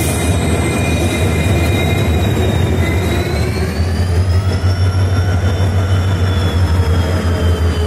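Diesel-hauled passenger train passing close alongside the platform: a loud, steady low rumble of the locomotive and coaches rolling by. A high-pitched wheel squeal rises about three seconds in, then slowly falls.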